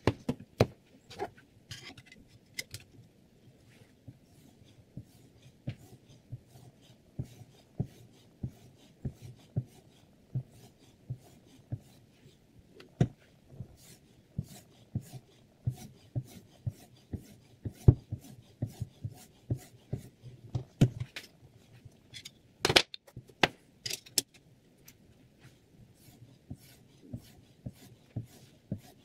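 Sharpening stone on the guide rod of a Hapstone R2 knife sharpener, stroked along the edge of a clamped VG10 steel chef's knife: rubbing and scraping with a sharp tap at each stroke, roughly once a second. A louder knock stands out a little past the two-thirds mark.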